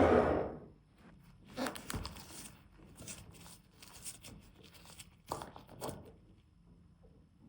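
Small hand work on model parts: a brief loud rustle at the start, then scattered light clicks and taps, with two small flurries of handling noise.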